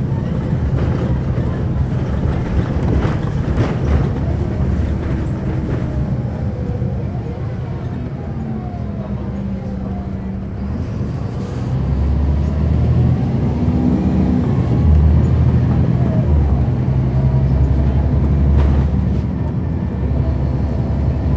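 Caterpillar C13 ACERT diesel engine of a NABI 416.15 40-foot transit bus, heard from on board while the bus is under way. Its pitch falls as the bus eases off, then rises from about halfway, and the sound grows louder as the bus accelerates.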